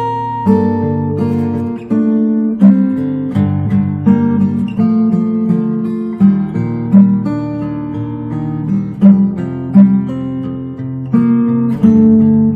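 Background music: an acoustic guitar playing picked and strummed notes in a steady rhythm.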